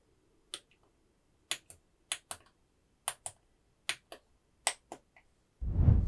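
Small tactile push buttons clicked about six times, each a quick double click of press and release. Near the end, a rising whoosh louder than the clicks.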